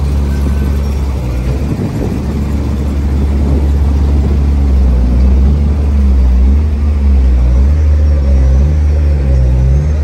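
Heavy diesel truck engine running, low and steady; about halfway through its speed starts to rise and fall several times.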